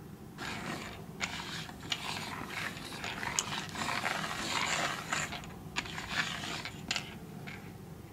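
Small caps being slid and shuffled across a tabletop by hand. A scraping rattle is broken by several sharp clicks as caps knock and are set down, and it stops shortly before the end.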